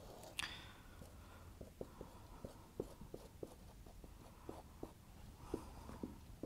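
Marker pen writing on a whiteboard: a faint run of short taps and squeaks from the tip as each stroke is made.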